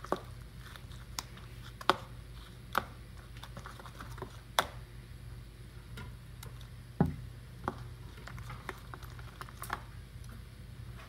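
Sticky glue-and-activator slime being kneaded and squeezed by hand in a bowl, giving irregular sharp clicks and pops, with a duller knock about seven seconds in. A steady low hum runs underneath.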